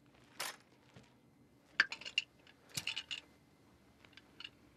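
Bayonet-fixed rifles clashing in a bayonet duel: several quick clusters of sharp metallic clanks, preceded by a short noisy swish about half a second in.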